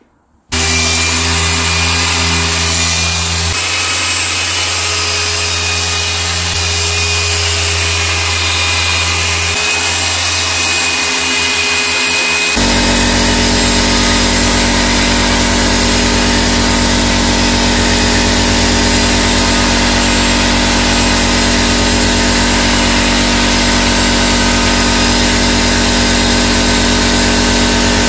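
Machine polisher with a small pad running steadily on a car's painted tailgate, polishing out swirls and sanding marks. About halfway through, its tone changes and it gets slightly louder.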